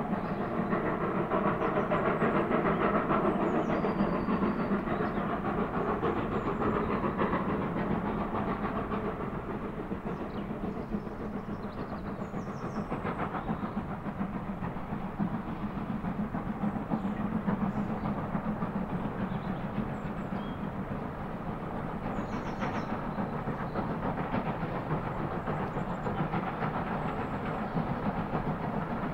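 Three USATC S160 2-8-0 steam locomotives working a train together, heard from afar. Their exhaust beats blur into a continuous chuffing along with the rumble of the train. Birds chirp faintly over it.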